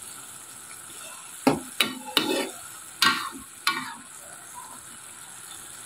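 Metal spatula scraping and stirring green beans and carrots in an aluminium wok, over a steady low sizzle of the vegetables frying in their liquid. About five sharp scrapes come in the middle, each under a second apart.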